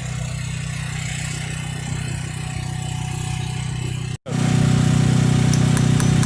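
An engine running steadily, a low idling hum. After an abrupt cut about four seconds in, a louder, steadier hum continues, with faint regular ticking near the end.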